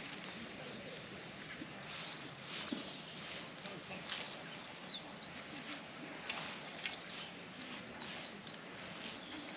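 Small birds chirping now and then over a steady outdoor hiss, with faint rustles and clicks.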